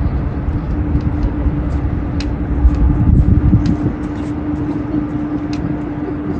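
Steady low hum of the cruise ship Mein Schiff 4 passing, over an uneven low rumble, with scattered faint clicks.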